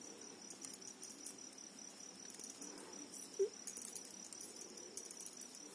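Faint soft clicks and rustles of thin metal knitting needles working wool yarn, over a steady high-pitched whine.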